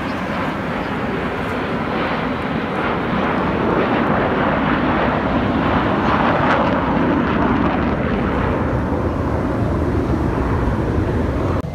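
A formation of display aircraft flying past, their engines making a steady rushing roar that grows louder toward a peak about halfway through and then eases slightly.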